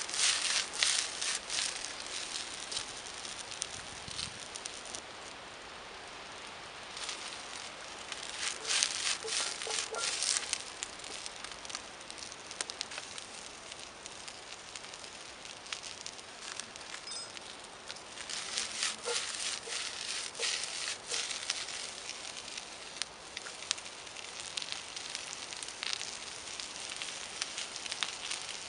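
Wood fire crackling under a steel wok of cabbage and vegetables frying with a steady sizzle, the crackle and hiss swelling in louder spells now and then.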